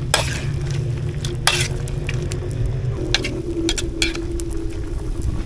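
Metal ladle scraping and clinking against a wok, several short strokes, as chunks of green papaya and chicken feet are stirred, over a steady sizzle of the cooking pot.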